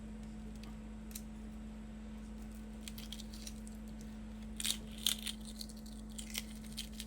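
Hard-boiled egg shells cracking and being peeled off by hand: scattered small clicks and crackles, thickest and loudest about two-thirds of the way through, over a steady low hum.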